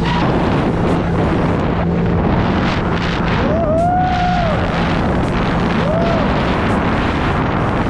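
Jet ski running at speed across open water: a steady engine drone buried under heavy wind noise on the microphone and hull spray. Twice a short whistling tone rises and falls, the first about three and a half seconds in, the second about six seconds in.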